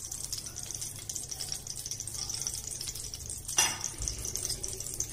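Oil sizzling with a steady hiss in a kadai holding a green chilli and spices freshly tempered with asafoetida. A short knock comes about three and a half seconds in.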